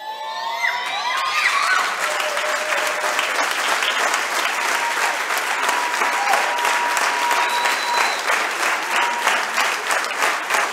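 Audience applause breaking out as the children's choir's song ends, building within the first second and then going on steadily and loud.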